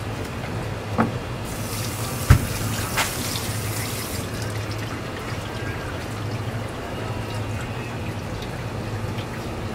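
Tap water running onto a plastic cutting board in a steel sink for about three seconds, with three sharp knocks, the loudest about two seconds in. A steady low hum runs underneath.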